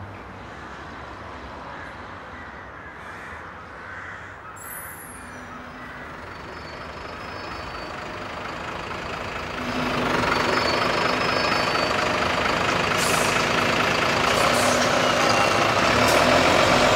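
Heavy articulated tipper truck's diesel engine coming nearer, growing steadily louder from about halfway and loudest near the end, with a faint street hum before it.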